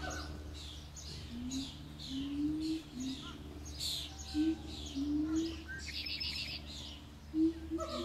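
Songbirds chirping over and over, a quick falling note about twice a second, with a brief rattling trill about three-quarters of the way through. Underneath, another animal gives a series of short, low rising calls, the loudest about halfway and near the end.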